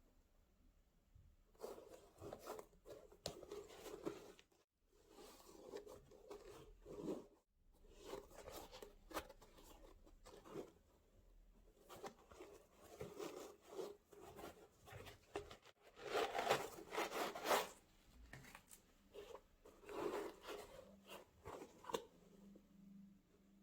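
Shoe packaging being handled: paper and cardboard rustling, crinkling and rubbing in irregular bursts, loudest about two-thirds of the way through.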